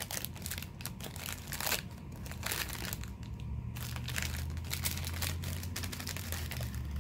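Crinkly plastic snack wrapper being crumpled and torn open by hand to get at a packaged brownie cake. The crackling is thickest in the first few seconds and sparser after.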